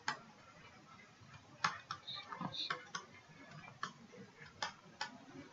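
Faint, irregular light taps and clicks, about six in all, from a stylus writing on a tablet screen.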